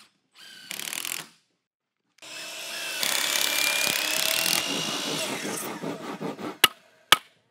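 A power tool working wood runs briefly, then again for about four seconds with a slight rising whine, followed by two sharp clicks near the end.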